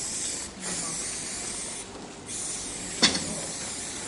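Aerosol spray-paint can hissing as paint is sprayed onto a wall, in three spells with short breaks between them. A sharp click about three seconds in.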